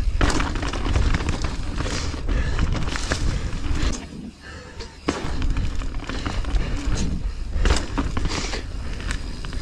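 Mountain bike ridden down a dirt singletrack: wind buffeting the helmet-mounted camera's microphone, knobby tyres rolling over dirt and leaves, and clattering knocks from the bike over bumps. It goes quieter for about a second near the middle.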